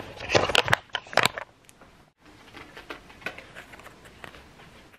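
Handling noise close to the microphone: a cluster of sharp clicks and rustles in the first second and a half, then fainter scattered ticks.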